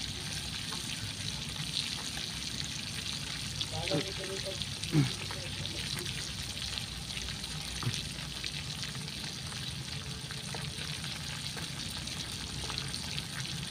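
Whole fish frying in oil in a steel wok, a steady sizzle with scattered light clicks. A brief pitched sound that falls in pitch stands out about five seconds in.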